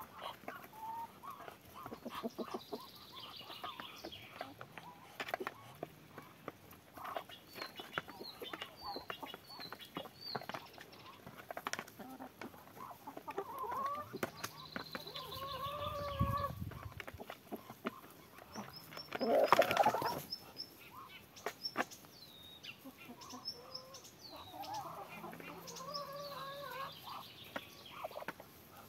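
Hen clucking in short, low calls while the birds peck at food in a metal tray, beaks ticking against it again and again. A brief louder rustle comes about two-thirds of the way through.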